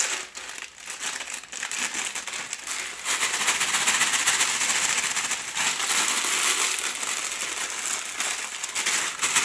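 A bag of crushed saltine crackers crinkling as it is shaken and squeezed empty over a stainless steel mixing bowl, with cracker pieces falling into the bowl. The crinkling gets louder and denser about three seconds in.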